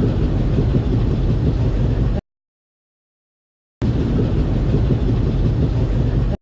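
Steady low rumble of a moving ride vehicle, played as two short clips that start and cut off abruptly, with dead silence between them.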